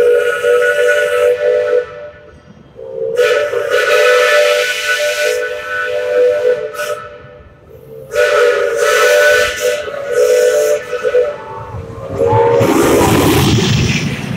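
Steam locomotive whistle sounding a series of long blasts with short gaps between them. Near the end a burst of steam hiss and low rumble takes over.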